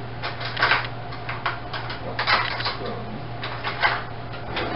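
Light clinks and knocks of cutlery and dishes being handled, about eight short ones spread irregularly over a few seconds, over a steady low hum.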